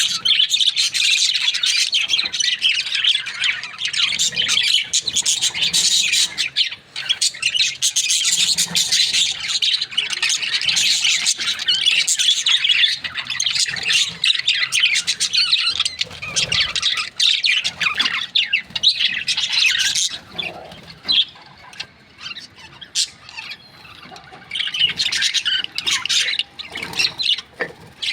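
Budgerigars chirping and squawking together in a constant busy chatter that thins out after about twenty seconds, then picks up again near the end.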